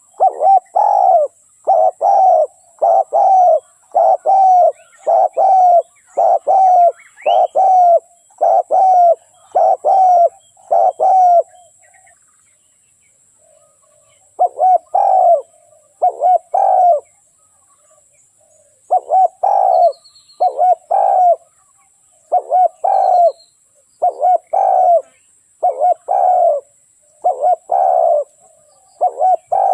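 Dove cooing: a long run of short coo notes, about two a second, broken by a few brief pauses. Small birds chirp faintly behind it.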